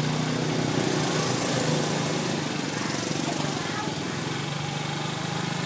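A small motor running steadily with a constant hum, under an even hiss.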